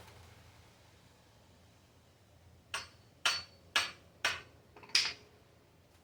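Hammer striking a coconut: five sharp blows about half a second apart, starting near the middle.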